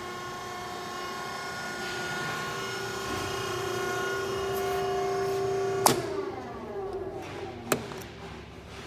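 GMS guillotine shear's motor running with a steady hum, then a sharp clack about six seconds in, after which the hum falls in pitch as the motor winds down. A second sharp click follows near the end.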